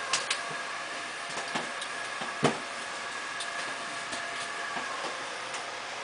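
Light clicks of hand tools and fittings being worked on an air conditioner's outdoor unit, with one louder clack about two and a half seconds in, over a steady hum.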